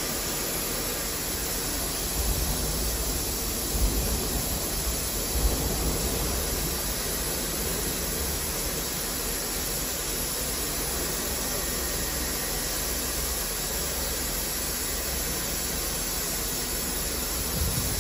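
Abrasive belt polishing machine working a spinning stainless steel pot lid: a steady grinding hiss, with a few low knocks between about two and six seconds in.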